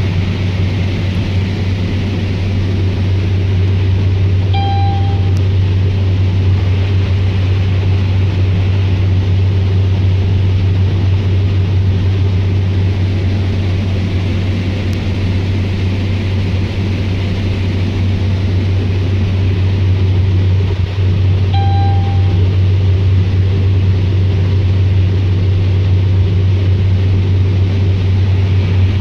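Heavy farm machinery's diesel engine running steadily under load with a deep drone, and two short electronic beeps, one about five seconds in and one about twenty-two seconds in.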